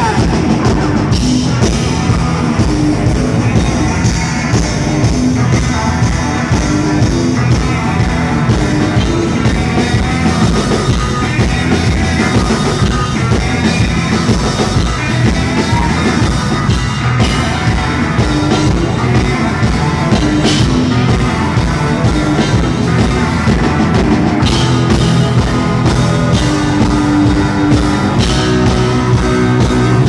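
Live rock band playing a fast punk-rock song: electric bass, electric guitar and drum kit, with a voice singing over them.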